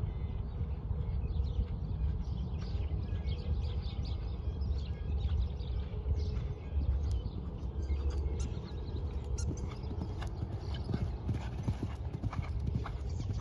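Hoofbeats of a horse cantering on sand arena footing under a rider, growing louder and more distinct near the end as the horse comes close.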